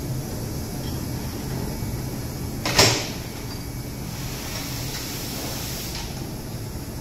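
A single sharp metal clank of steel tooling handled at a workbench fixture, about three seconds in, over a steady low hum.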